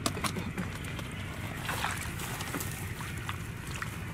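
Hands working in wet grass and mud, with scattered small clicks, rustles and light splashes. A steady low wind rumble on the microphone runs under them.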